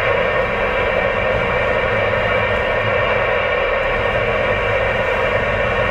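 Steady hiss of static from a two-way radio channel held open with no voice on it, squeezed into the narrow pitch range of a radio speaker, over a low vehicle engine drone.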